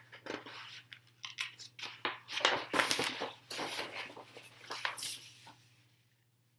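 Paper rustling and crackling as the pages of a large big-format book are handled and turned, over a steady low electrical hum.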